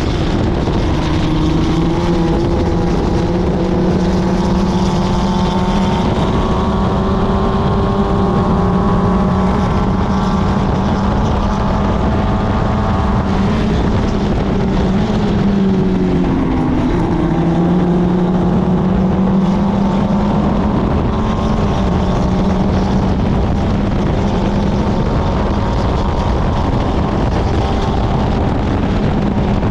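Club Ford race car's 1.6-litre Ford Kent four-cylinder engine running hard at racing speed. The revs climb slowly, drop sharply about halfway in, then pull back up.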